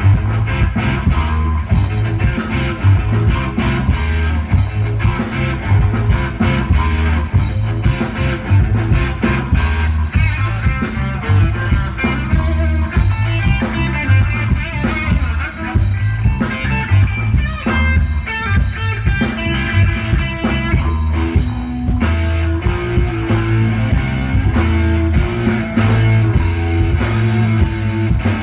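A live rock band playing amplified: electric guitar, bass guitar and drum kit over a heavy, steady bass line. A busier run of high notes stands out from about ten seconds in until about twenty-two seconds.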